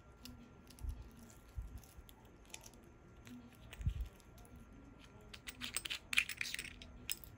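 Light clicks, taps and small metallic rattles of an Orient 3 Star wristwatch being handled, with a quick run of bright clicks about six seconds in and a few soft thumps earlier.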